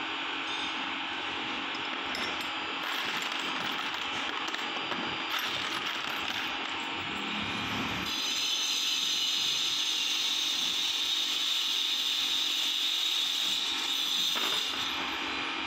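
Light metallic clicking of small chrome-plated bolts and nuts handled in a plastic tub, over a steady background hiss that becomes louder and higher about halfway through.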